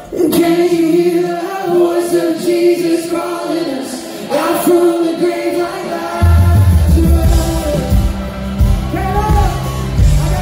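A live band plays with sung vocals over a steady held note. About six seconds in, the drums and bass come in and the music grows fuller and louder.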